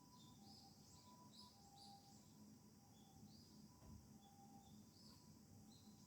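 Faint, distant Japanese ambulance siren alternating between two tones, a high and a low note in a slow "pee-paw" cycle, with small birds chirping in short, irregular calls over it.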